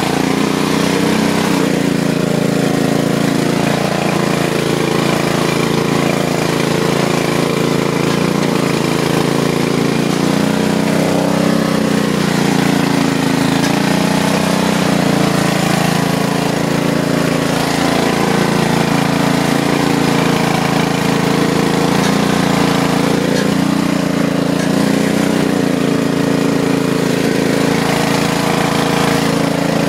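Riding lawn mower's small engine running steadily at high throttle while driving through mud. Its pitch dips and recovers now and then as the load on it changes.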